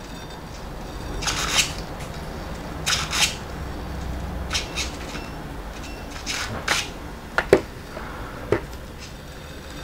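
Highest B600 brushless steering servo making short whirs as it swings the buggy's steering from side to side, about seven quick movements, with a few sharper clicks near the end.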